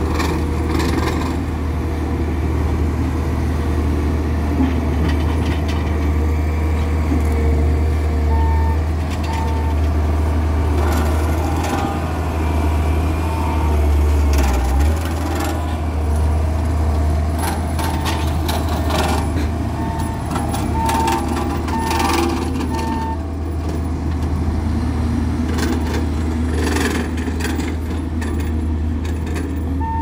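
Heavy diesel construction machinery running steadily with a deep, continuous rumble: a Dynapac single-drum soil roller compacting close by, with a Hidromek 102B backhoe loader working further off. From about eight seconds in, a reversing alarm beeps in short runs, and occasional knocks sound over the drone.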